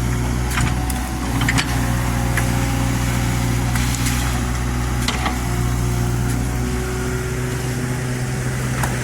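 Excavator's diesel engine running at a steady speed, with a few short knocks from the machine working.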